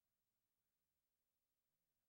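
Near silence: an essentially empty audio track with only a faint noise floor.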